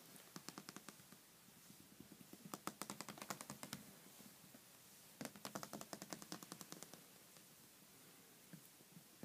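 Five-week-old Pomeranian puppies' claws clicking on a tile floor as they scamper: three quick runs of light clicks, about ten a second.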